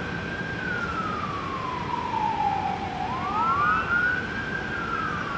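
Sheriff's patrol car siren on a slow wail, falling in pitch for about three seconds, then rising again and starting to fall near the end.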